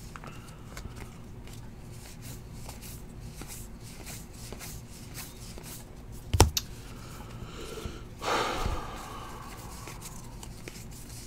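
Quiet handling of baseball trading cards: faint ticks and shuffles as cards are turned over, a sharp click about six seconds in, and a brief rustle about eight seconds in.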